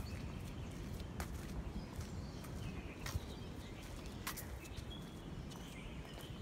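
Outdoor ambience: birds chirping over a steady low rumble, with a few sharp clicks about a second or more apart.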